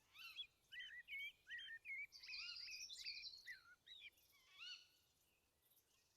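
Faint birdsong: a busy run of short, quick chirps rising and falling in pitch, thinning out after about four seconds.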